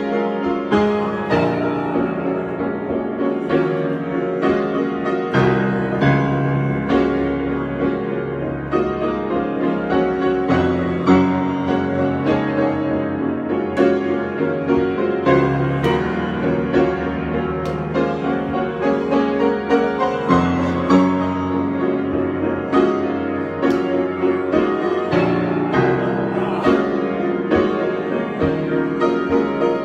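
Solo piano improvisation: a continuous flow of chords and melody notes with frequent new attacks.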